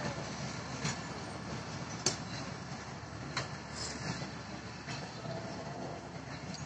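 Rupsha Express passenger coaches rolling slowly past: a steady low rumble with a few sharp clicks.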